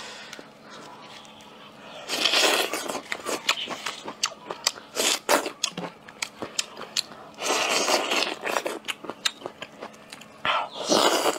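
Husk being torn off a soaked hand-peeled bamboo shoot in several crackling, ripping pulls, then a crunchy bite into the shoot near the end.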